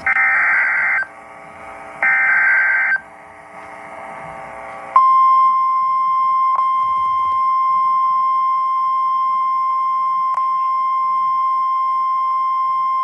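Emergency Alert System header: two bursts of screeching digital data tones, about a second each, then about five seconds in a steady single-pitch alert tone starts and holds. It is the signal that opens a National Weather Service severe thunderstorm warning.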